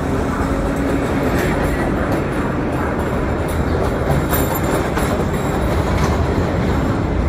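Vintage R1-9 subway train running through the station: a steady, loud noise of steel wheels on the track with faint clicks over the rail joints.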